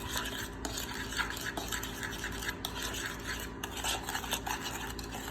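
A spoon stirring and scraping dry cinnamon and sugar around a mixing bowl, in many quick, uneven strokes.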